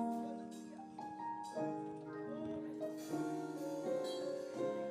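Keyboard music: soft sustained chords, moving to a new chord every second or so.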